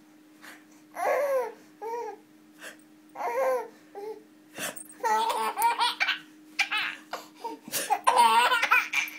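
A baby laughing in short bursts at first, then in longer, faster runs of giggles from about five seconds in, while being tickled on the tummy.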